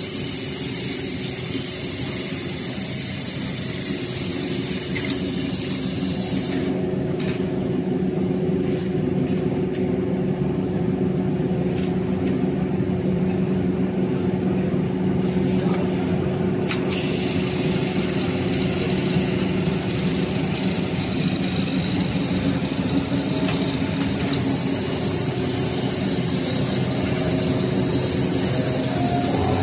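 HighTex MLK500-2516ECO automatic pattern sewing machine running: a steady mechanical hum with a higher hiss that drops away for about ten seconds in the middle.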